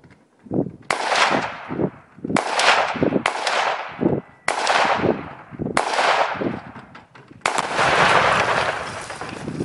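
AR-15 rifle shots, six of them at uneven gaps of one to two seconds, each with a long echo trailing off. The last, about seven and a half seconds in, rings on longest, for about two seconds.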